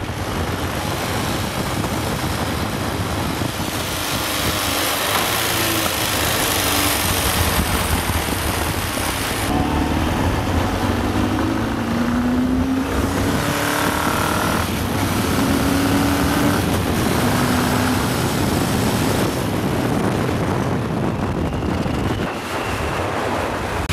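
Honda CB750 inline-four motorcycle engine running under way, buried in heavy wind noise on the microphone; about halfway through, its note climbs and steps up as it pulls through the gears.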